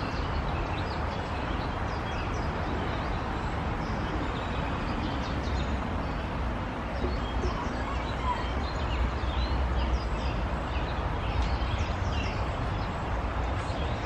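Steady outdoor woodland ambience: a continuous low rumble under a haze of background noise, with faint, scattered bird chirps.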